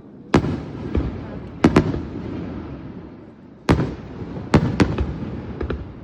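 Aerial fireworks shells bursting with about eight sharp bangs, several coming in quick pairs, each followed by a rolling rumble of echo.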